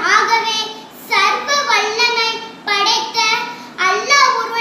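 A young girl's voice chanting in a high, sustained singsong. It comes in phrases of about a second each, with short breaks between them.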